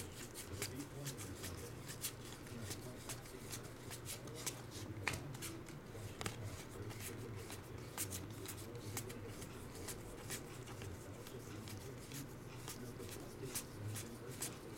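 A stack of glossy trading cards being flipped through by hand, with many small irregular clicks and snaps as the cards slide off one another, over a low steady hum.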